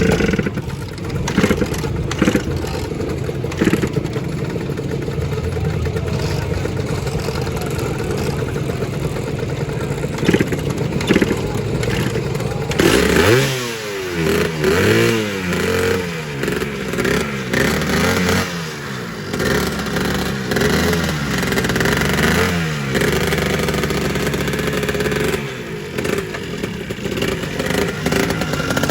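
Two-stroke Lambretta scooter engines running at idle; about halfway through, the throttle is blipped again and again, the revs rising and falling for about ten seconds before settling back to a steady idle.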